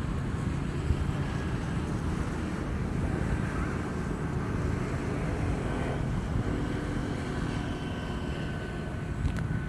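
Outdoor countryside evening ambience: wind rumbling on the microphone, with faint steady high tones over it and a couple of faint clicks near the end.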